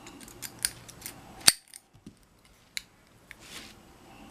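Small metal clicks and taps of a tool against a padlock's body as it works at a stuck core retention pin; a few sharp separate clicks, the loudest about a second and a half in.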